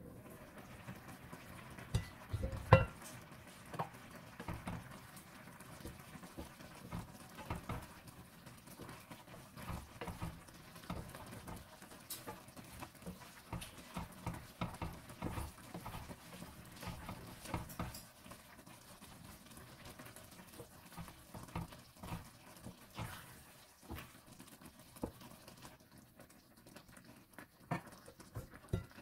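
Wooden spoon stirring thick risotto in an enamelled cast-iron braiser: irregular soft scrapes and taps against the pan, with a couple of sharper knocks about two and a half seconds in.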